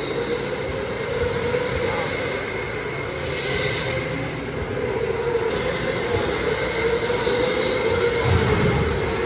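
Steady machine hum of a large indoor kart-racing hall, with a droning tone that slowly rises and falls and a thin steady high tone above it.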